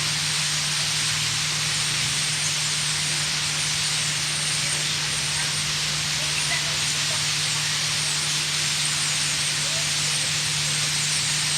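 Dense, unbroken chatter of a huge flock of birds, which the speaker takes for swallows, heard as a steady high hiss of countless overlapping calls, over a steady low hum.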